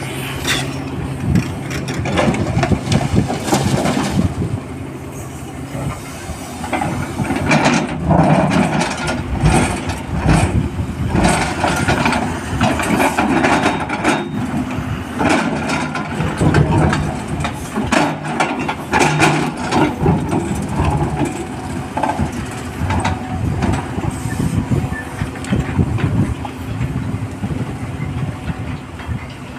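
Komatsu PC300 hydraulic excavator working under load: a steady diesel engine drone, with rock and gravel scraping and clattering in the bucket as it digs.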